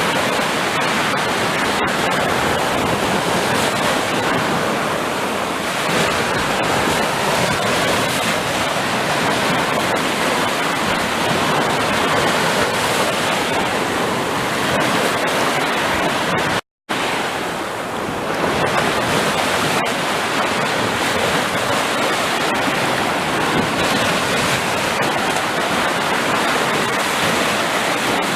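Sea surf: a steady, dense rush of waves breaking. The sound cuts out to silence for an instant about two-thirds of the way through, then resumes.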